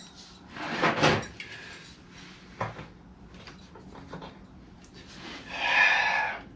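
Hand tools and the steel exhaust header being handled while the stock exhaust and O2 sensor are worked loose: scattered metallic clicks, knocks and scrapes, with a longer hiss about a second long near the end.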